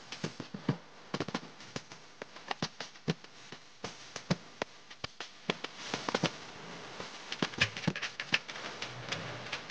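Rapid, irregular sharp pops and cracks, several a second, some louder than others.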